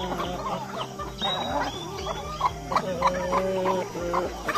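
Domestic chickens clucking and calling in short, bending notes, with one longer held call about three seconds in. A steady low hum runs underneath.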